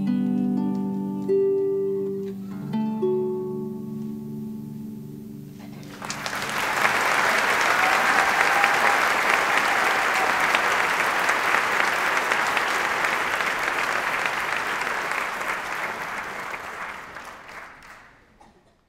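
Last plucked notes of a harp ringing out and dying away, then audience applause breaks out about six seconds in, holds, and fades out near the end.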